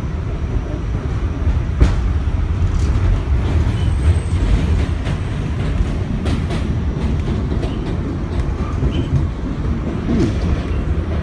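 Inside an R46 subway car running on elevated track: a steady low rumble from the wheels and running gear, with sharp clicks as the wheels pass over rail joints, the loudest about two seconds in.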